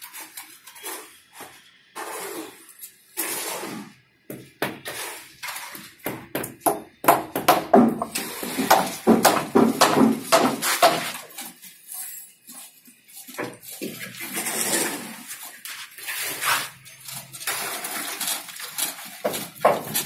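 Irregular knocks, scrapes and clatter of metal pans, with wet concrete being tipped and sloshing into the wooden formwork of a column. The clatter is densest and loudest in the middle.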